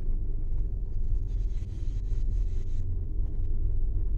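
A car's engine and road noise heard from inside the cabin: a steady low rumble.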